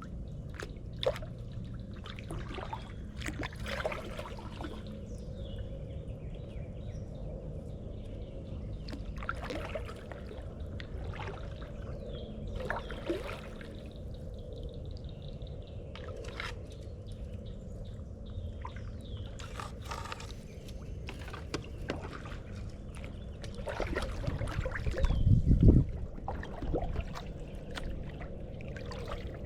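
Kayak paddling: water trickling and dripping off the paddle blades in irregular splashes. A louder low thump comes near the end.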